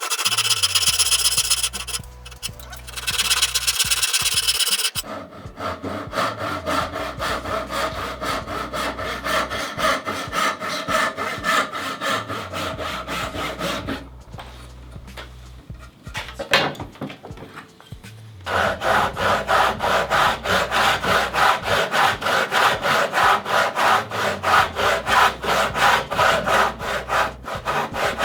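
Hand saw cutting wood in quick, even back-and-forth strokes, pausing briefly in the middle before starting again. Background music with a bass line plays underneath.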